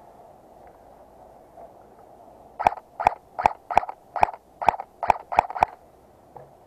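Airsoft gun fired in single shots, nine sharp snaps in quick succession over about three seconds.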